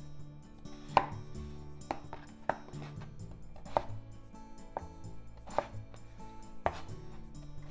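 Kitchen knife cutting through a raw peeled potato and knocking on a wooden cutting board: about seven sharp chops at an uneven pace, with soft background music underneath.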